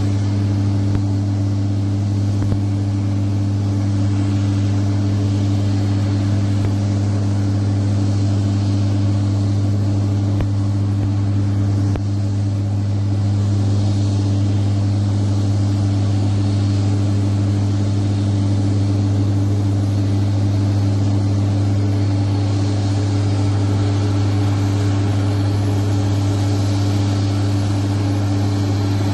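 A steady, loud machine drone with a strong low hum, unchanging throughout.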